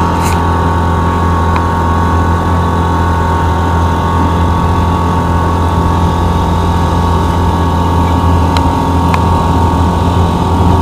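Boat engine running steadily under way: a constant low drone with a steady whine above it and a few faint clicks.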